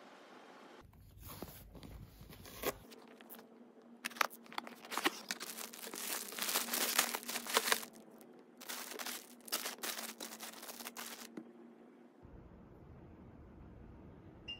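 Plastic packaging around a parcel of fabric being torn open and crinkled, rustling in quick crackly bouts from about four seconds in until about eleven seconds in.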